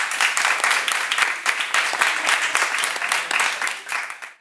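Audience applauding: many hands clapping densely together, tapering off near the end.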